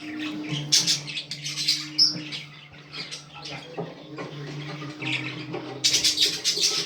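Pet budgies chirping and chattering in quick short bursts, busiest about a second in and again near the end, over a steady low hum.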